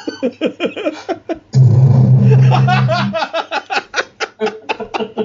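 A man laughing in rapid pulses, cut into about a second and a half in by a loud, distorted, bass-heavy sound effect lasting about a second and a half, relayed over Discord and played from a stereo; the laughter picks up again after it.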